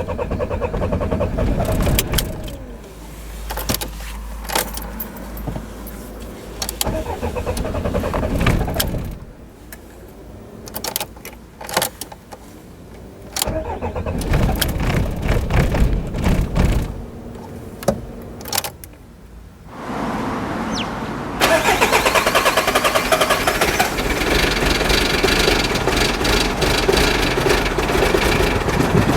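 Volkswagen Golf 1.9 TDI diesel engine being cranked on the starter in several attempts with short pauses between them, the last attempt long and steady, as it struggles to start. This is a hard-starting diesel that needs long cranking before it catches.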